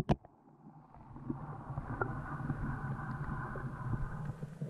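An underwater camera's own microphone sinking through the lake water under the ice: a couple of knocks at the start, then a steady, muffled low rushing hum that builds from about a second in and cuts off suddenly at the end.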